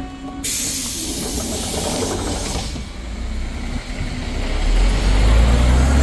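A sudden burst of compressed-air hiss from a Hyundai New Super Aerocity city bus's air system about half a second in. Near the end its 290 hp CNG engine builds revs as the bus pulls away.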